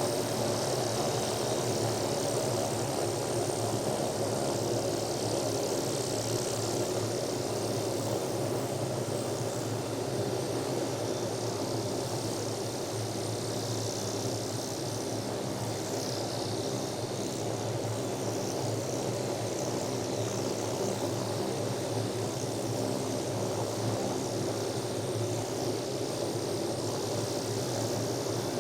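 Helicopter engine and rotor blades running steadily, with a slight drop in level about halfway through.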